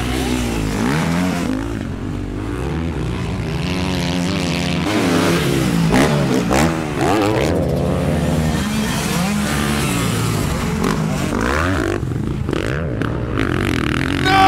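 Imitation dirt-bike engine revving, rising and falling in pitch over and over, made to go with a toy motocross bike pushed through loose dirt. Light scraping of dirt under the toy's wheels.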